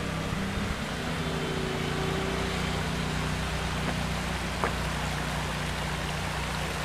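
Creek water running steadily over rocks, with a faint low hum underneath.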